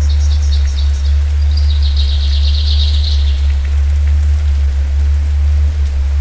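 Steady rain with a deep, constant low rumble beneath it. Through the first three seconds or so a small bird sings, rapid high chirps running into a fast trill.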